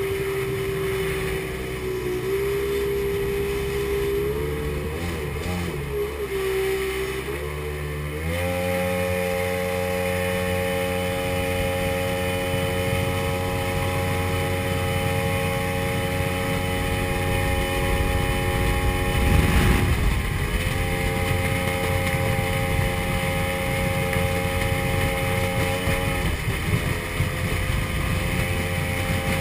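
Mercury 175 hp two-stroke XR2 engine driving a Mercury Sport Jet pump, running under way at a steady pitch. About eight seconds in it speeds up to a higher steady note and holds there. About two-thirds of the way through comes a brief, louder rush as the engine note dips and recovers, and a smaller dip follows near the end.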